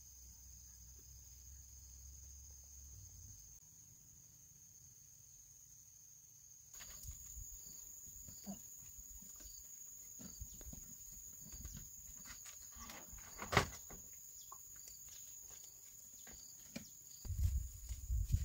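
Faint steady high-pitched insect drone, stronger from about seven seconds in, with scattered clicks and one sharp tap about two-thirds through. Rustling and thumps near the end.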